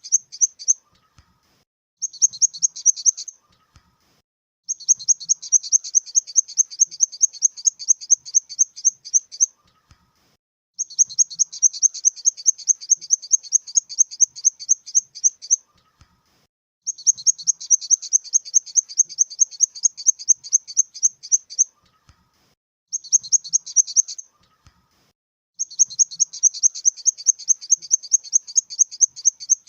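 Grasshopper stridulation: high-pitched, quick rhythmic chirps in runs of one to five seconds, separated by short pauses.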